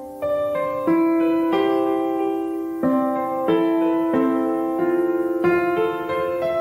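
Background music: a piano playing a slow, gentle melody, a new note or chord struck about every half second to second and left to ring.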